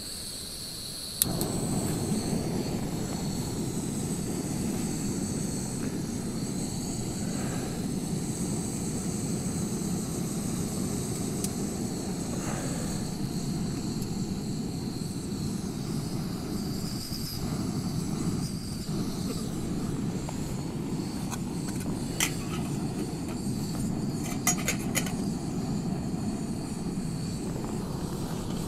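Canister gas stove lit with a sharp click about a second in, then the burner running with a steady roar under a pot of water. A few light metallic clicks near the end.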